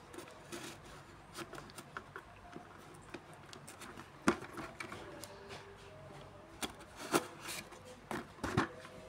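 Cardboard shipping box being slit open with a box cutter and turned in the hands: scraping and rubbing of blade against cardboard and tape, with a few sharp knocks, the loudest about four seconds in.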